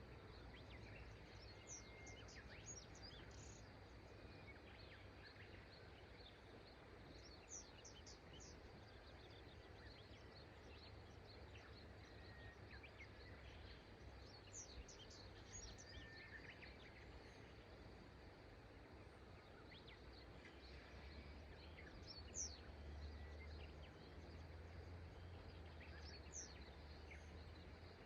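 Faint, steady river-side ambience: a low wash of flowing water with small birds chirping in short high bursts every several seconds.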